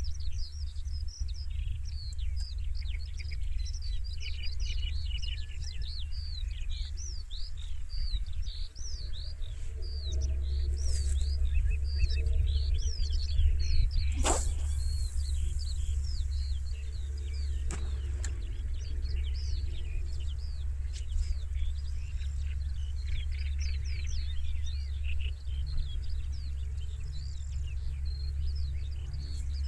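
Many songbirds chirping and singing densely over a steady low rumble. A single sharp swish cuts through about halfway, with a fainter one a few seconds later.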